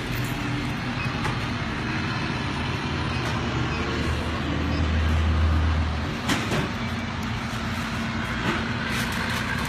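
A steady low mechanical rumble, like an engine running, that swells about halfway through and cuts off abruptly about six seconds in, followed by a couple of faint clicks.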